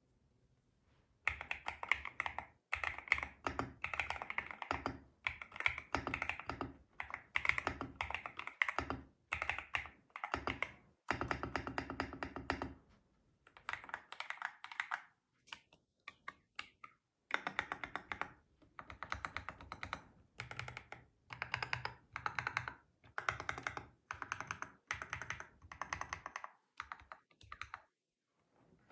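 Typing on a GMK67 mechanical keyboard fitted with Akko Cream Yellow Pro V3 linear switches: runs of quick keystrokes with short pauses between them, starting about a second in.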